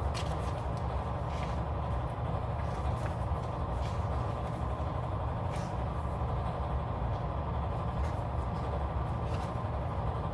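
A steady low hum of background noise, with a few faint light ticks and rustles from handling paper planner pages.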